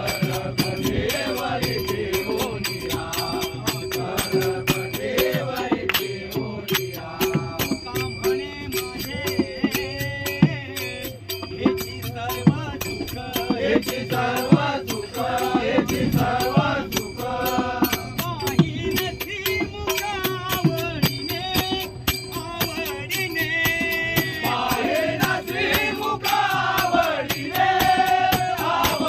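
A group singing a Marathi devotional abhang in a strong voice, in the style of a bhajan, to a quick, steady beat of small hand cymbals.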